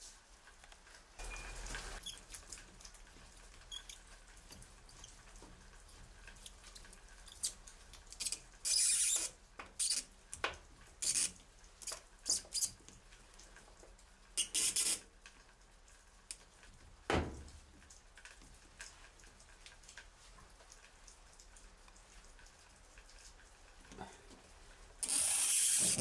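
Plastic water-inlet hose couplings on the back of a Tromm washing machine being handled and unscrewed: scattered clicks and rubbing with several short hissing bursts, the longest near the end, and a single dull knock about two-thirds of the way through.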